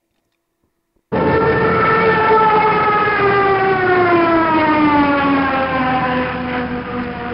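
Jet aircraft fly-past sound effect: a loud buzzing engine tone over a rumble that starts abruptly about a second in and slowly falls in pitch as the plane passes.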